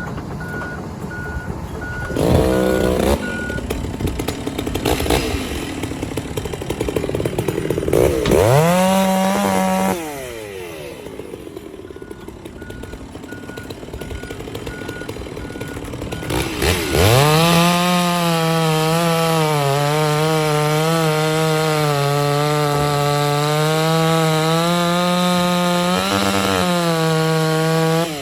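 Stihl chainsaw revved up and dropped back twice. About halfway through it settles into a long full-throttle cut, its pitch wavering under load and dipping briefly near the end. A machine's back-up beeper sounds faintly at times.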